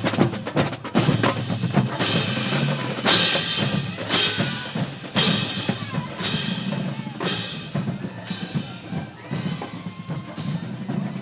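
Drum-led music: rapid snare-like strokes for the first two seconds, then a loud crash-like strike about once a second over steady low notes.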